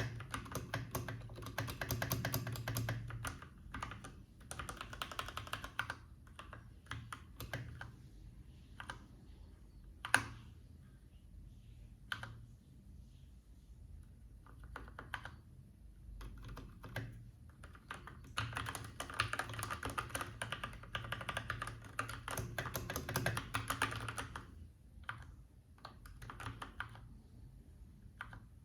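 Typing on a Keychron K8 mechanical keyboard: quick runs of keystrokes near the start and again from about two-thirds of the way in, with slower scattered key presses between them and one louder keystroke about a third of the way in.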